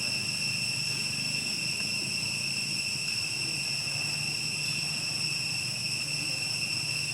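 Insects droning: a steady high-pitched trill with overtones that does not break, over a low hum.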